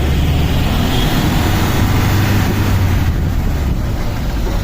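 Motor vehicle running on the road: a steady low engine rumble with road noise.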